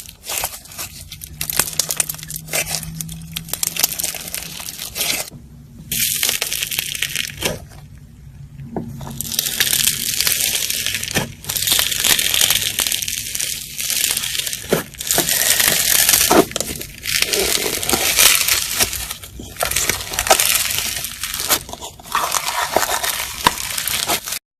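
Slime being squeezed and pressed by hand, making dense crackling, crunching sounds that come in waves, with a couple of short breaks in the first third.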